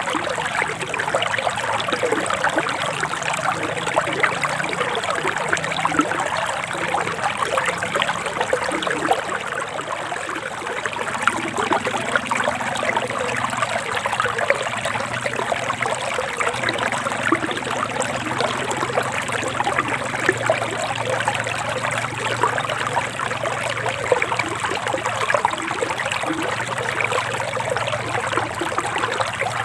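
Forest stream flowing steadily, water trickling and splashing in a continuous rush.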